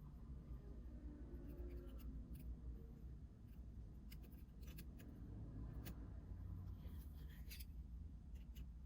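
Faint scattered clicks and light scrapes of small repair tools on an iPhone XR's internal metal brackets and screws, over a low steady hum.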